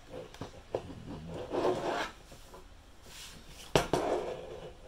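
Wooden jig board scraping and rubbing as a tight-fitting metal pivot pin is worked into its hole, with a sharp knock a little under four seconds in.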